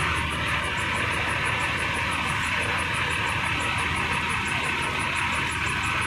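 Large diesel forklift's engine running steadily as it carries a road roller on its forks, with a fast, even high ticking over the engine sound.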